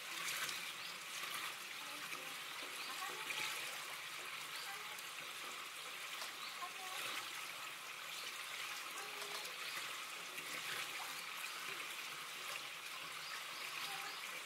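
Steady trickle of running water, with faint voices in the background.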